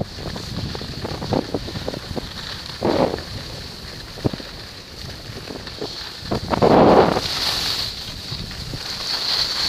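Wind rushing over a moving skier's camera microphone, with the hiss of sliding down a groomed ski run on packed snow. The rush swells twice, briefly about three seconds in and more strongly near seven seconds.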